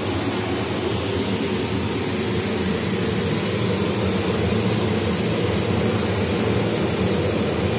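Stainless-steel kitchen range hood's extractor fan running steadily at speed, a loud even hum with airflow noise.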